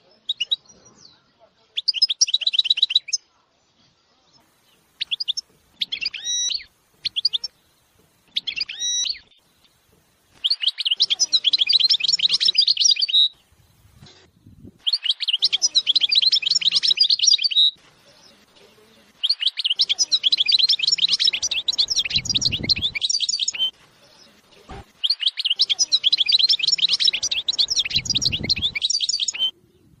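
A caged finch singing: short twittering calls in the first ten seconds, then long phrases of rapid high trills lasting two to four seconds each, with short pauses between them.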